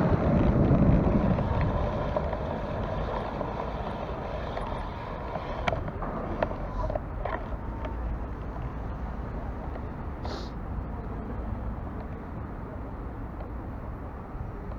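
Wind rushing over the microphone while riding into a headwind, easing off over the first couple of seconds. A few light clicks come around the middle, and a short hiss about ten seconds in.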